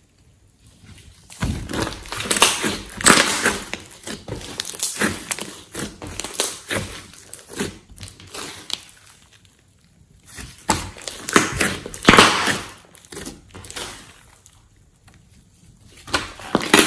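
Thick clay slime being squished and pressed by hand, with dense crackling and clicking in bouts separated by quiet pauses.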